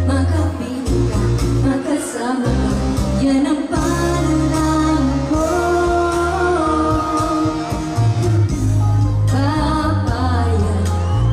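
Pop song playing loudly, with a singing voice over a heavy bass line.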